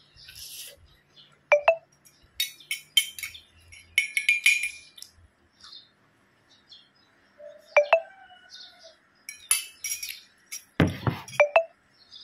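Metal spoon clinking against a glass coffee cup, a few light ringing clinks in small clusters, with a heavier knock near the end as the glass is set down.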